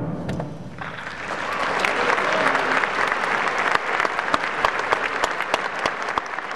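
A concert band's last chord dies away, and about a second in the audience breaks into steady applause.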